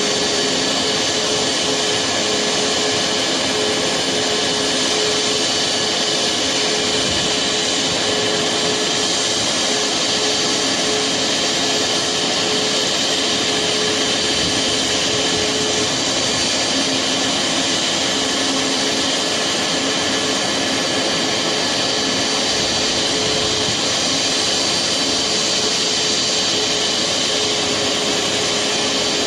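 Boeing 737 MAX's CFM LEAP-1B turbofan engines running steadily at taxi power: an even jet rush with a steady hum and a high whine.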